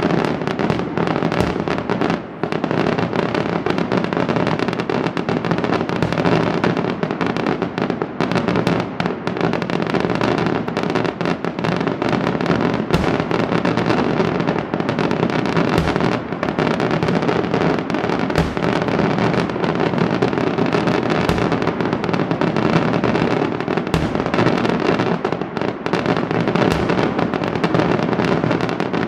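Daytime fireworks barrage: a dense, unbroken rattle of rapid firecracker bangs, with a few deeper booms standing out over it.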